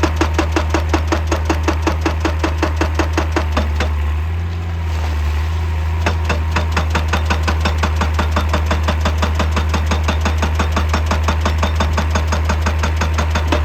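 Excavator-mounted hydraulic breaker hammering rock in a fast, even series of blows over the steady running of the excavator's diesel engine. The blows stop for about a second and a half around four seconds in, then start again.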